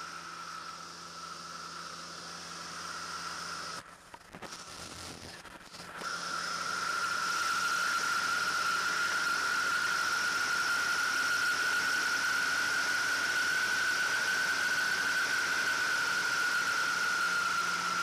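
Marquart Charger biplane in flight, heard from the open cockpit: steady engine and propeller drone under rushing air, with a steady high whine. About four seconds in the sound drops away briefly, then comes back louder from about six seconds on.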